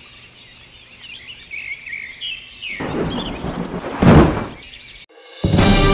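Birdsong: chirps, then a fast, even trill high up. A rush of noise swells up from about three seconds in and peaks near four seconds, and music starts just before the end.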